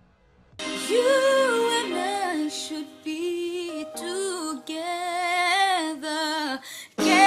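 A woman singing a pop ballad solo, with no accompaniment heard, starting about half a second in. She holds long notes with a wide vibrato and slides between pitches in melismatic runs, with a short break near the end.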